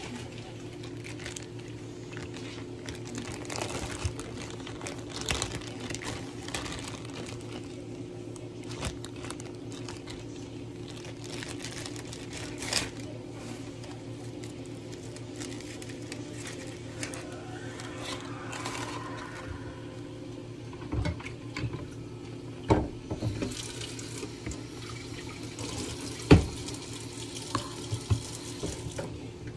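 Kitchen work sounds: water running or splashing over a steady low hum, with scattered clicks and several sharp knocks of utensils or dishes in the second half, the loudest about 26 seconds in.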